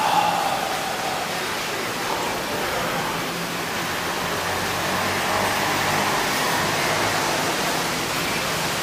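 Steady rushing background noise of an open-air walkway by a parking lot, with a faint low hum underneath and a short louder sound at the very start.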